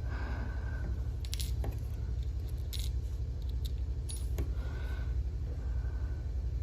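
A few small, sharp metallic clicks and taps from watchmaking tools on a watch movement, over a steady low hum.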